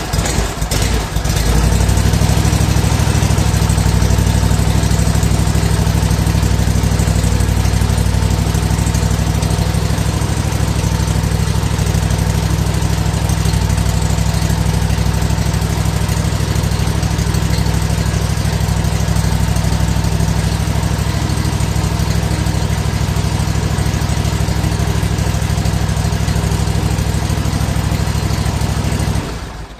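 Husqvarna commercial zero-turn riding mower's engine running steadily just after starting, run briefly after an oil change to circulate the fresh oil and fill the new filter. It comes up to speed in the first couple of seconds and is switched off suddenly near the end.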